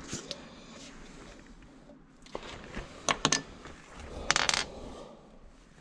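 Small metal bike parts, chainring bolts and nuts, clinking as they are handled: a few sharp clicks with short ringing, the loudest cluster about four seconds in.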